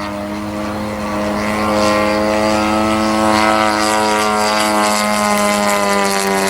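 The 50cc gas engine and propeller of a large RC model airplane running steadily, getting louder about two seconds in and then holding.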